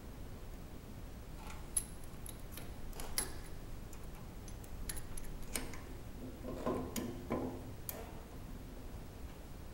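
Allen wrench clicking against the socket-head bolts that hold a hydraulic valve to its subplate as they are turned in by hand: a scatter of light metallic clicks, busiest about seven seconds in.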